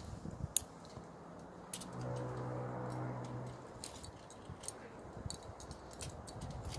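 Faint, scattered light clinks of climbing hardware, carabiners and gear on a climber's harness, as she moves up a rock crack. A low steady hum sounds for about a second and a half, about two seconds in.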